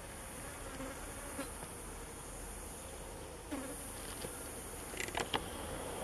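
Flying insects buzzing, with a wavering hum passing near the microphone over a steady high-pitched insect drone. A few short sharp sounds come about five seconds in.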